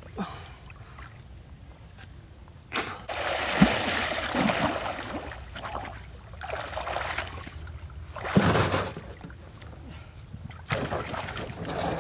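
River water splashing and sloshing in several irregular bursts as a person swims to the bank and climbs out. The loudest splashes start about three seconds in.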